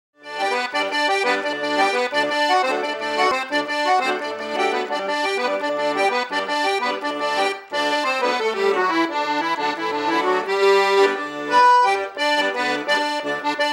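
Instrumental background music, a melodic tune with many overlapping notes, starting just after the opening silence.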